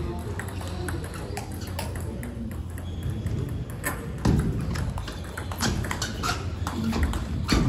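Table tennis ball struck back and forth in a rally: a run of sharp clicks of the ball on the bats and the table, starting about four seconds in.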